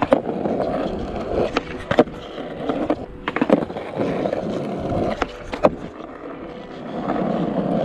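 Skateboard wheels rolling on asphalt, a steady rumble that swells and fades, broken by several sharp clacks and knocks from the board.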